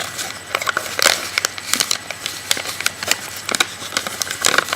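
Origami paper being folded and creased by hand: irregular crinkles and crackles of stiff paper.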